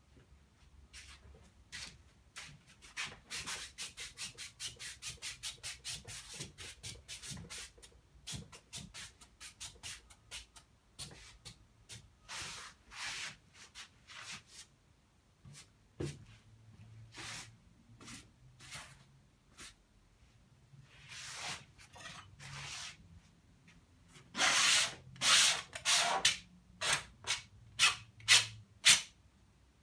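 Paintbrush scrubbing oil paint onto unstretched canvas in runs of quick back-and-forth strokes, about four a second at times. The loudest run comes about 24 seconds in.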